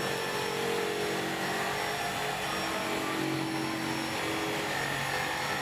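A running engine: a steady drone of hum and hiss whose pitch lines shift slightly about halfway through.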